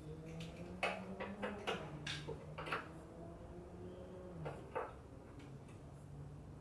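Small clicks and light clattering as a tail-light bracket and its little black clips are pushed into place by hand on a Jeep Wrangler's rear body. The clicks come in a quick cluster from about a second in, then two more near the fifth second, over a low steady hum.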